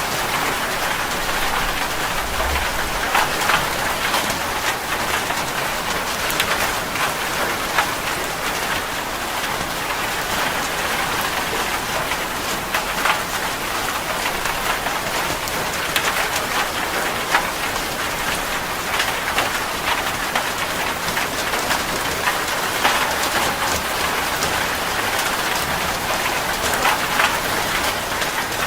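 Steady rain falling on a surface: a constant hiss dotted with many sharp individual drop hits.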